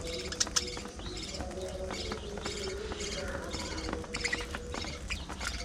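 A colony of budgerigars chattering and chirping continuously, many birds at once, with short clicks and a couple of sharp louder clicks about half a second in.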